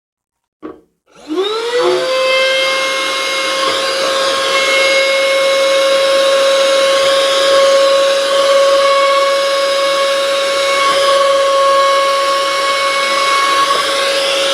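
A handheld cordless car vacuum cleaner switched on with a click, its motor spinning up with a rising whine and then running steadily at a high pitch. It cuts off suddenly at the end.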